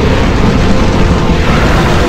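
Loud, rumbling blast of dragon fire-breath sound effect over background music.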